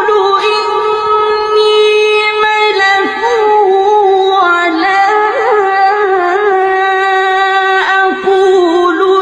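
Music: a melody of long held notes, sung or played, each note wavering slightly and moving in small steps.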